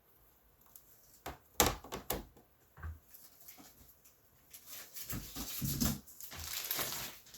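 Hard plastic comic slabs being handled in a box: a few sharp clacks, then a spell of rustling as packing material is moved.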